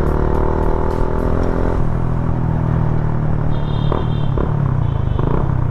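Yamaha Sniper 150's single-cylinder four-stroke engine running under way, heard from the rider's seat. It holds an even note for about two seconds, then turns to a rougher, lower drone.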